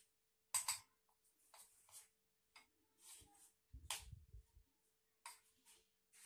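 Faint, irregular short rubbing and scraping strokes of a hand stirring besan (gram-flour) batter in a steel pot, with water worked in a little at a time to break up lumps.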